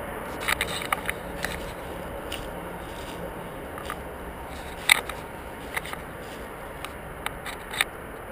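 Irregular sharp crackles and snaps of dry leaf litter and twigs underfoot, over a steady hiss; the loudest snap comes about five seconds in.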